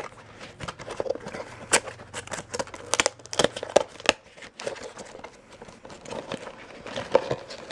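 Toy figure packaging being opened by hand: cardboard and plastic crinkling and rustling, with scattered sharp clicks and taps throughout.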